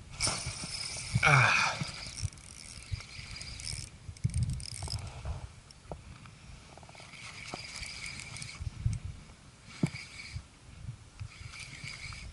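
Shimano Biomaster 1000FB spinning reel in use: a hiss with a falling sweep about a second in, then the reel whirring in short stretches as the line is wound in. Low knocks and rumble from handling and wind on the camera run underneath.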